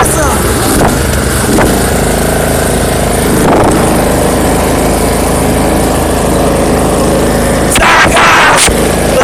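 Riding lawn mower's engine running steadily and loud, close up. Near the end a brief louder, hissing noise rises over it for under a second.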